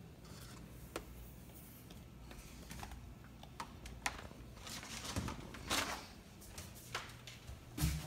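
Handling noise: irregular light clicks, taps and rustles as a power cord and its plug are handled and traced up a cabinet, with a stronger brush a little past the middle and a knock just before the end.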